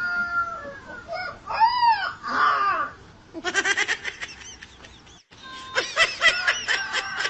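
Chickens squawking and clucking: a few arched squawks, then rapid runs of short clucks, broken off briefly about five seconds in.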